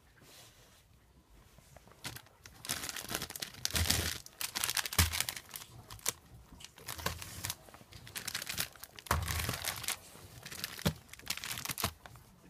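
Plastic-wrapped packets of custard cream biscuits crinkling and rustling as a hand shuffles through them, in irregular bursts that start about two seconds in.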